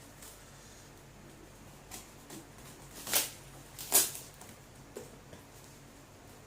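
A shipping parcel being opened by hand: a few light clicks and scrapes, then two brief, loud, rasping sweeps of the packaging about three and four seconds in.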